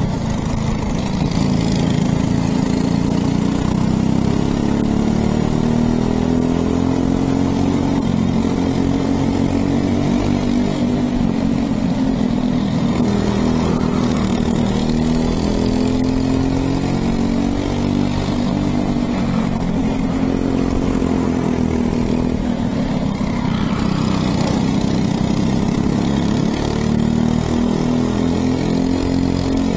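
Racing kart's single-cylinder engine heard onboard at speed, revving up on the straights and dropping off into the corners, over and over through the lap.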